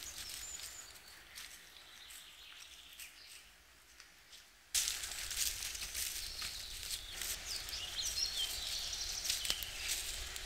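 Woodland ambience of birds singing, with footsteps rustling through dry leaf litter. The sound steps up suddenly about halfway through, with more chirps and rustling.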